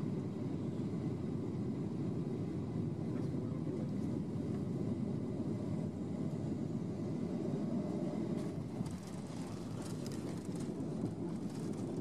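Cabin noise of a Boeing 737 on final approach and landing, heard from inside the cabin: a steady low rush of engines and airflow, with a few faint clicks and rattles in the last few seconds as the jet reaches the runway.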